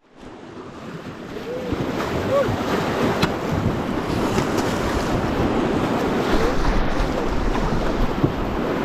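Rushing river rapids washing around an inflatable raft, with wind buffeting the microphone. The sound drops out for an instant at the start, then builds over the first couple of seconds to a steady rush.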